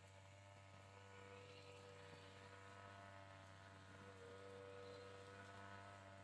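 Faint steady hum made of many evenly spaced tones, its higher tones wavering slightly in pitch partway through.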